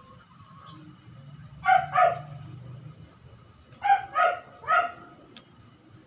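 A dog barking: two quick barks, then about two seconds later three more.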